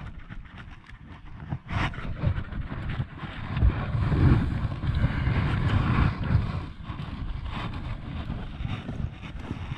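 Wind buffeting the camera microphone over water noise around a fishing kayak, loudest in the middle, with a sharp knock of handled gear about two seconds in.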